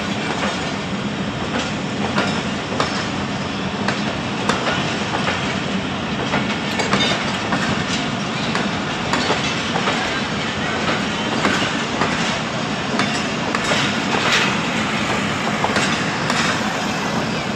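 Passenger train coaches rolling past at close range: a steady rumble of wheels on track, with the clickety-clack of wheels striking over the rail joints.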